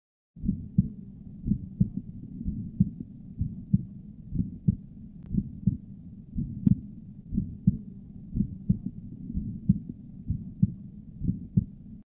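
Heart sounds through a Thinklabs One digital stethoscope at the left upper sternal border, starting about half a second in: regular heartbeats with a murmur filling the gaps between beats. The murmur is from mild congenital pulmonic stenosis.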